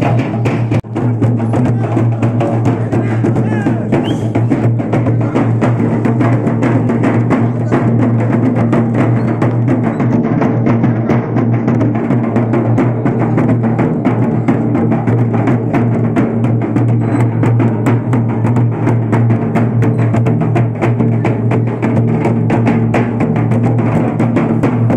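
Live folk percussion: a large hand-beaten procession drum played in a fast, steady, driving rhythm, with a steady low drone running under it.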